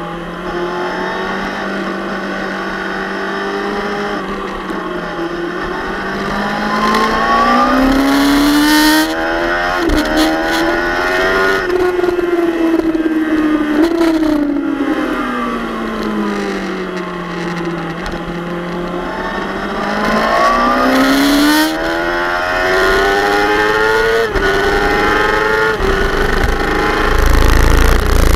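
Suzuki GSX-R600 K7 inline-four engine on track, revving up and easing off through corners, its pitch climbing, falling and stepping down at quick upshifts. Wind rushes over the microphone throughout, heaviest near the end.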